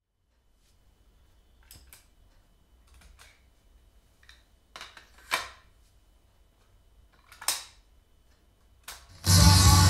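Mechanical clicks and clunks of a Technics RS-D400 cassette deck as its cassette door is opened and snapped shut and a transport key is pressed; the two loudest clunks come about five and seven and a half seconds in. Just after nine seconds, guitar music starts playing back from the tape.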